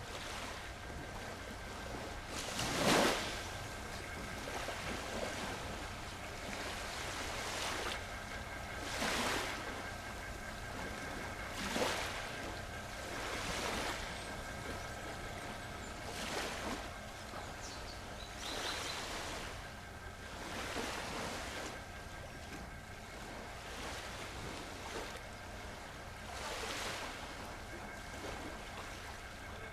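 Small sea waves washing in one after another every few seconds, each a short rush of surf; the loudest breaks about three seconds in.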